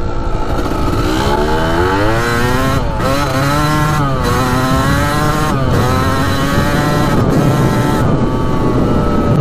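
1993 Kawasaki KDX200's single-cylinder two-stroke engine at hard throttle, climbing through the gears: the pitch rises, drops back at each of several shifts, and rises again.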